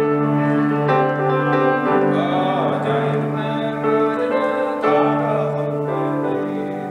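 Grand piano playing sustained chords over a held low bass note. From about two seconds in, a man's voice sings an ornamented sean-nós air over it.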